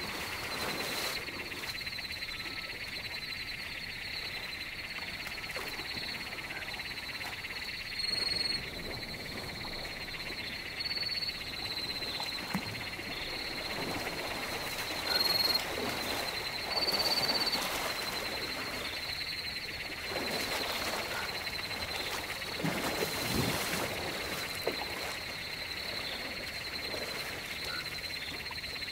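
Waterhole ambience: a steady, high-pitched chorus of rapidly pulsing calls from small animals. Four brief, louder whistled notes on about the same pitch stand out between roughly a quarter and two thirds of the way through.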